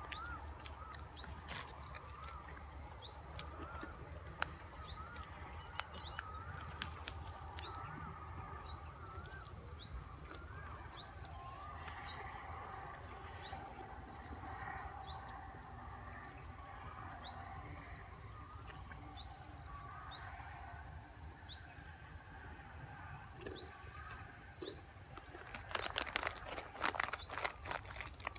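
Outdoor insect chorus: a steady high drone with a short high chirp repeating about every second and a bit, while birds call on and off. A run of clicks and knocks comes near the end.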